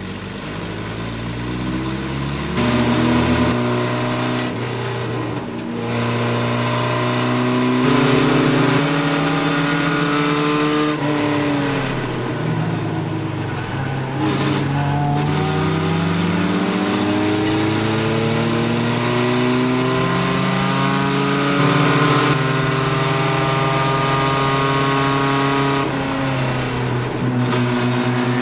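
A Chevy LUV race truck's engine heard from inside the cab at racing speed, its revs climbing and falling again and again as it accelerates and lifts, with a noise of wind and tyres underneath.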